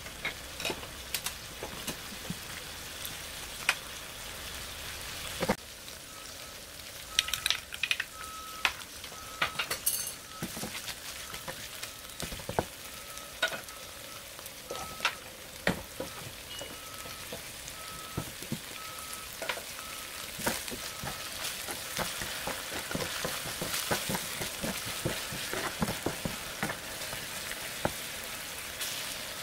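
Sausage slices, ham and chopped green onion sizzling in oil in a frying pan: a steady frying hiss with frequent sharp pops and clicks.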